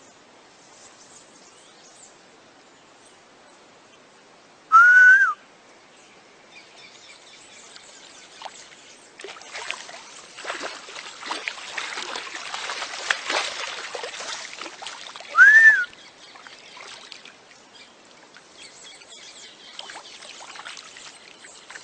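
Two loud, short whistle-like calls about ten seconds apart, each rising then falling in pitch. Between them, several seconds of splashing and trickling water from a caiman thrashing in a shallow stream, which the onlookers take for it being electrocuted.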